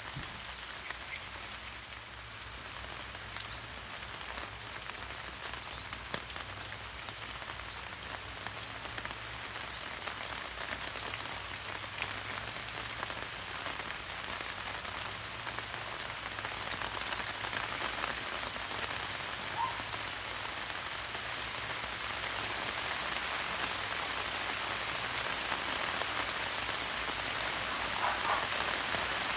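Steady rain falling, growing gradually heavier and louder, with a few faint short high chirps here and there.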